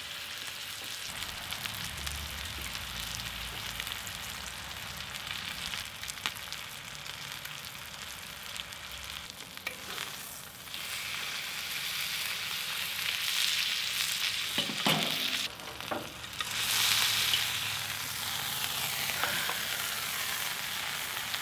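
Thick ribeye searing on a hot soapstone slab, its fat and juices sizzling steadily. The sizzle grows louder in the second half as the steak is lifted with a spatula, with a couple of short knocks.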